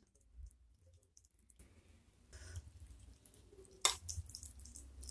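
Metal fork and spoon stirring in a bowl of meatball soup and lifting flat noodles out of the broth: faint wet sloshing and dripping, with one sharp clink of metal on the bowl a little under four seconds in.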